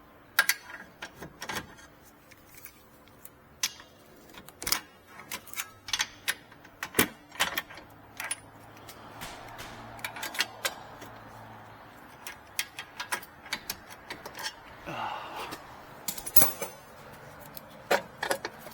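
Irregular metal clanks and clicks as a pry bar levers the lower control arm and ball joint out from the steering knuckle.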